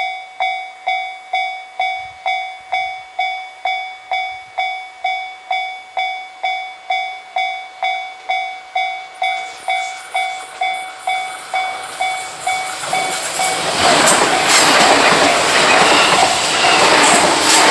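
A Japanese level-crossing warning bell dings steadily, about twice a second. From about 13 seconds in, a 211 series electric train crosses and its wheels clatter over the rail joints, drowning out the bell.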